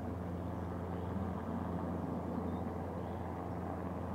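Distant helicopter flying low: a steady low drone of its rotor and engine.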